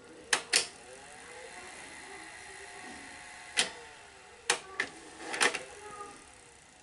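Sony SL-HF400 Betamax VCR's tape transport: two sharp mechanism clicks, then a motor whirring with a shifting pitch for about three seconds, then a run of further clicks as the mode changes and the whir dies away. The rewind starts and then quits, a fault the owner puts down to the front system-control circuit board.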